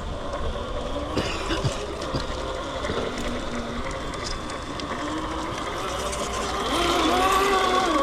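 RC rock crawler's electric motor and gearbox whining, the pitch rising and falling as the throttle changes, louder near the end, with a few light clicks.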